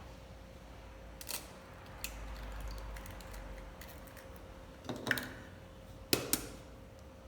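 Eggs being cracked open: a few short, sharp clicks and cracks of shell, with two close pairs about five and six seconds in.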